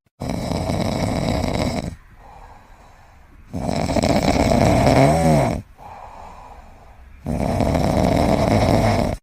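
A sleeping pet snoring: three loud snores about two seconds long, roughly every three and a half seconds, with quieter breaths between.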